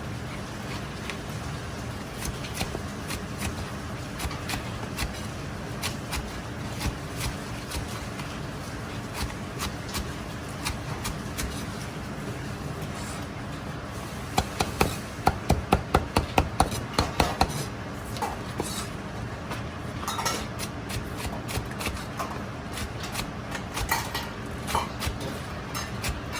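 Kitchen prep sounds: scattered clicks and knocks of utensils over a steady low hum, with a quick run of about a dozen sharp, ringing knocks, roughly six a second, about halfway through.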